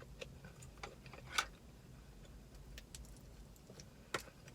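Quiet close-up chewing with scattered wet mouth clicks and smacks, two of them louder, about a second and a half in and near the end.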